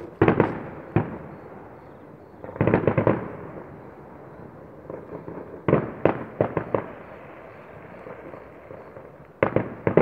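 Fireworks display: sharp bangs and pops in four quick clusters, one about every three seconds.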